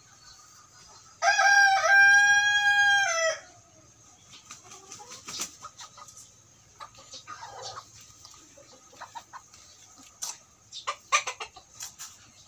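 Native ayam kampung rooster crowing once, a call of about two seconds that holds a steady pitch and drops at the end. It is followed by a few quieter short calls and scattered faint clicks.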